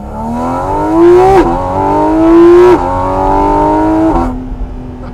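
Porsche 718 Cayman GT4 RS's naturally aspirated 4.0-litre flat-six under hard acceleration, its note rising with the revs and dropping sharply at two quick upshifts. Near the end the throttle comes off and it settles to a steady, quieter lower note.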